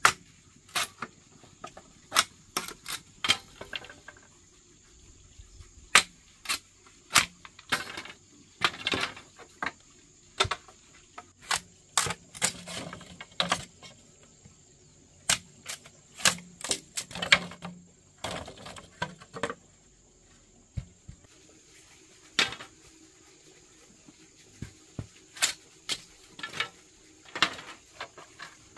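Irregular sharp knocks and taps, some single and some in quick clusters, over a steady high insect drone such as crickets.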